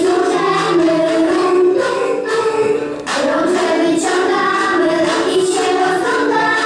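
A children's song: women's and children's voices singing together over music, with a short dip in loudness about three seconds in.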